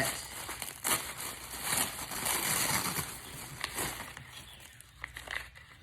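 Packaging rustling and crinkling as a package is opened by hand, with a few sharp clicks; it dies down near the end.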